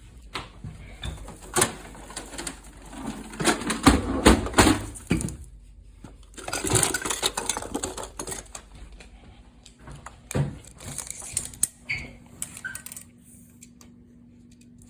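Irregular clicks, knocks and rustling of an AR-15 rifle being handled, with a few sharper knocks.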